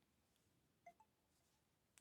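Near silence: room tone, with one faint short blip a little under a second in.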